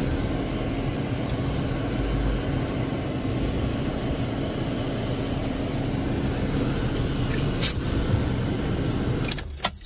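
Toyota truck's engine running as the truck drives slowly. About nine and a half seconds in, the engine is switched off and the sound falls away, with a few clicks.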